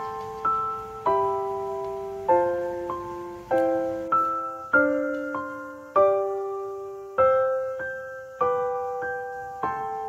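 Background music: slow piano, a note or chord struck a little more than once a second, each ringing and fading before the next.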